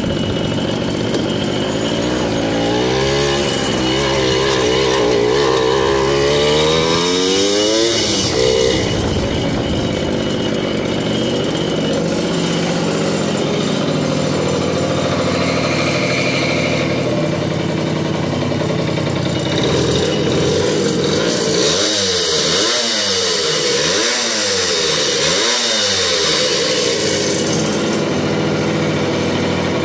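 Small two-stroke Jawa moped engine running through its dented original exhaust. Its pitch rises steadily for several seconds early on, then settles, and near the end it is revved in several quick blips.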